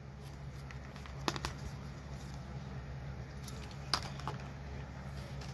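Faint handling of a plastic paint palette: a few light clicks and taps, the two sharpest about a second in and near four seconds, over a steady low hum.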